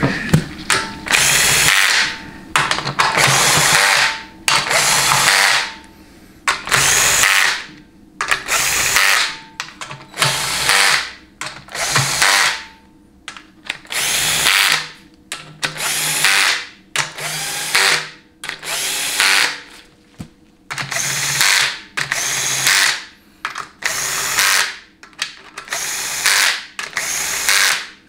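Cordless drill with a socket spinning the bolts of a transmission oil pan down. It runs in short bursts of a second or so, one bolt after another, with brief pauses between.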